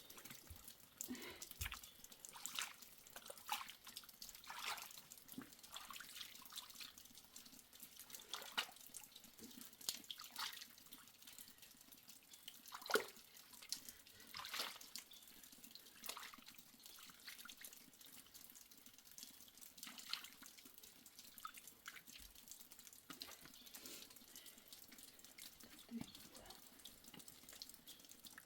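Water dripping and splashing in irregular, scattered drops over a faint steady hiss, the loudest drop about halfway through.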